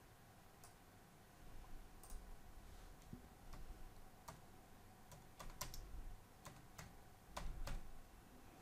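Faint clicks of a computer keyboard as a short text prompt, "wavy hair", is typed: single keystrokes at an uneven pace, starting about two seconds in.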